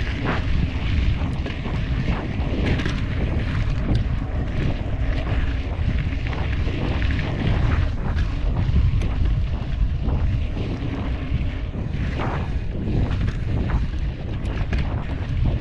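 Wind buffeting the microphone of a camera on a moving mountain bike, a steady low rumble, with tyre noise on the dirt and scattered short clicks and rattles as the bike goes over bumps.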